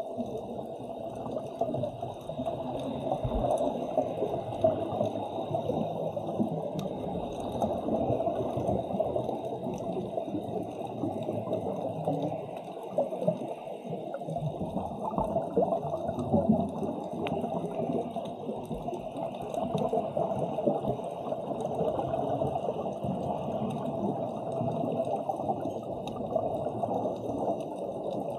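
Muffled underwater sound on a scuba dive: a steady, low wash of water noise with a faint high hiss above it.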